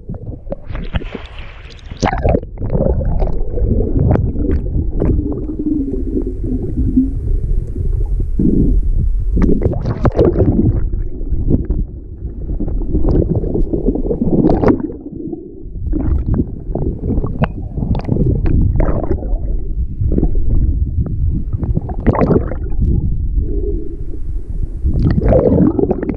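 Seawater sloshing and gurgling over a camera held at the waterline: a loud, muffled, uneven rumble broken by frequent short splashes as the waves wash over the microphone.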